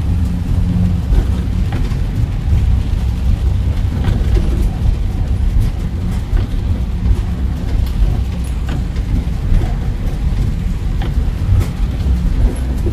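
A car driving in the rain: a steady low rumble of engine and road noise, with scattered short taps throughout.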